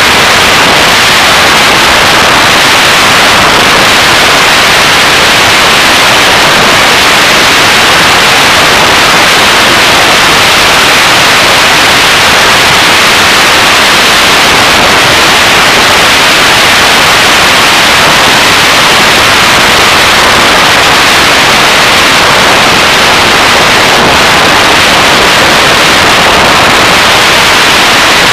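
Loud, steady hissing noise with no distinct tones or separate events, strongest in the upper-middle range and overloading the recording.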